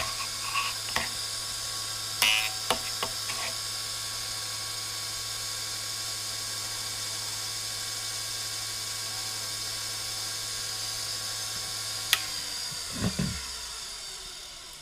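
TDR 82B drill grinder's motor and wheel running steadily, with a few clicks and short scrapes in the first few seconds as the drill bit is touched to the freshly dressed wheel to split its point. Near the end there is a click, the motor is switched off and the hum winds down.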